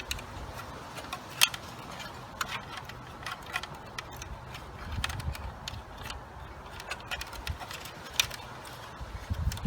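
Scattered light clicks and taps of an upright vacuum's parts being handled and fitted together during reassembly, with a sharper knock about a second and a half in and another near the end.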